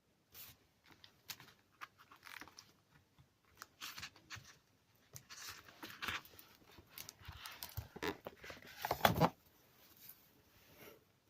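Packaging of a comic being handled and opened by hand: scattered rustles, crinkles and small taps, with a louder stretch of tearing and crinkling about nine seconds in.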